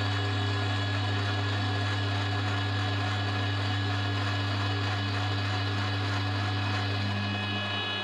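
Milling machine running steadily, its face mill cutting across the end face of a cast metal block: an even hum with a layer of steady high whine.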